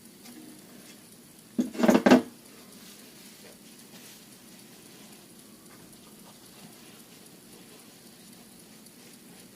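Metal exhaust pipe being hand-polished with Brasso: a soft, steady rubbing and scrubbing. One brief loud burst about two seconds in.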